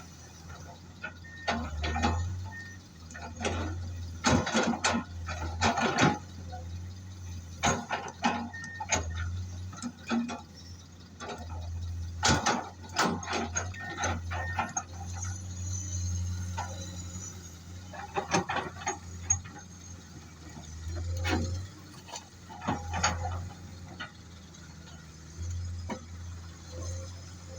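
Excavator engine running steadily, with repeated bursts of clattering knocks as it loads a truck.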